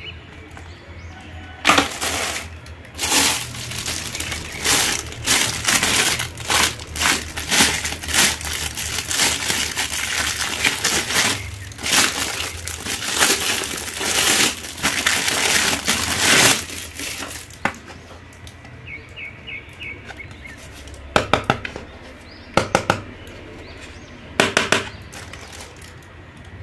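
Clear plastic bags crinkling and crackling as hard plastic costume masks are handled and unwrapped from them, dense for the first two-thirds, then sparser single crinkles and taps.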